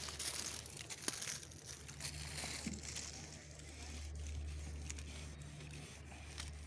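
Scratchy rustling as a wide ink marker is drawn in strokes across a painted metal panel, with one sharp click about a second in.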